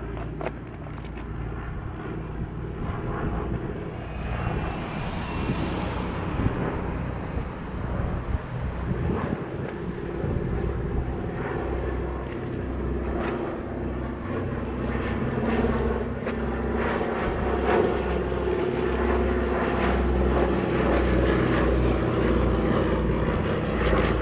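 Fixed-wing aircraft engines running steadily, with a high whine that falls in pitch about five seconds in, then growing louder through the second half.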